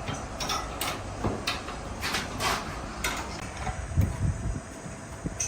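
Steel parts clinking and clanking as they are handled, a string of sharp knocks over a steady low hum, with heavier thuds about four seconds in.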